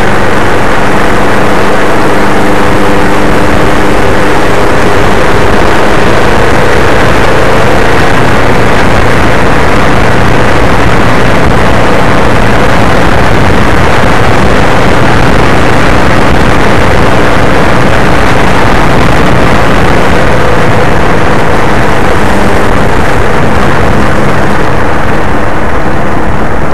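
Steady, very loud wind rush over a vehicle engine running at a constant cruising speed on a dirt road.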